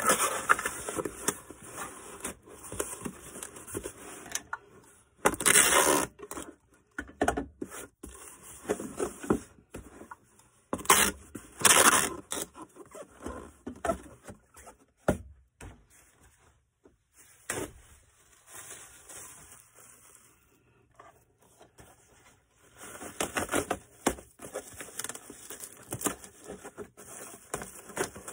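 Movie cases and packing materials being handled to pack a lot of movies for shipping: irregular scraping and rustling, with two louder rasping bursts about five and eleven seconds in.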